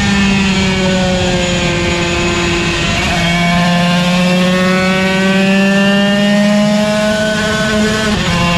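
Yamaha TZ125 single-cylinder 125 cc two-stroke race engine. Its revs fall for about three seconds as it slows, then climb steadily under acceleration, and drop briefly near the end as it changes up a gear.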